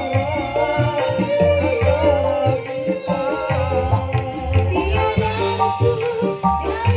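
Loud music with a drum beat and a melody line, played over a sound system.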